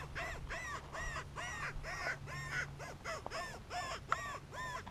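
A long, unbroken series of short cawing calls, about three a second, evenly spaced and alike in shape, over a low rumble.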